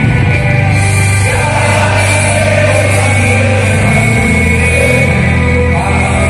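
Rock-style song with singing: a football supporters' anthem.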